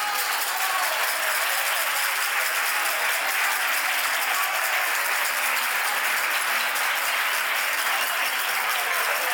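Steady applause from a crowd, with no music.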